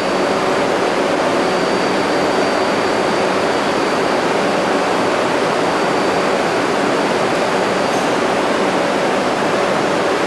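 Steady, even rushing noise of an underground subway station, with a faint high whine that fades out about eight seconds in.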